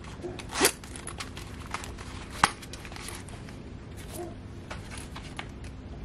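Tools being put into a waxed canvas and leather carry pouch: fabric rustling with light metal clicks, and two sharper knocks, one just over half a second in and one about two and a half seconds in.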